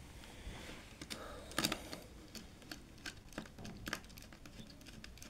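Faint, scattered clicks and rustling as stiff insulated wires are handled and a screwdriver works the terminal screws of an electrical contactor.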